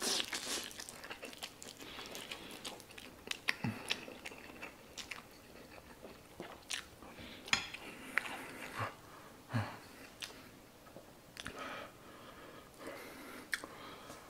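Close-miked eating of spicy instant noodles: a slurp of noodles at the start, then steady chewing with many wet mouth clicks and smacks.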